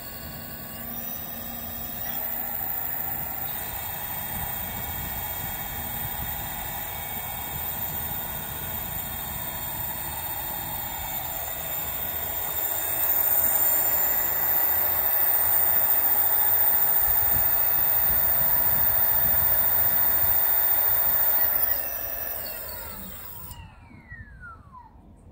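Direct-drive brushless gearless hub motor in a 20-inch front wheel spinning unloaded at high speed, giving a steady electric whine with several high tones from the controller; it grows louder about halfway through. Near the end the drive cuts off and the whine glides down quickly as the wheel coasts down.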